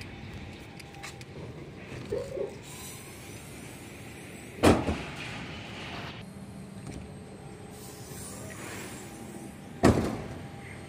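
Two loud bangs about five seconds apart, each dying away briefly, over steady background noise.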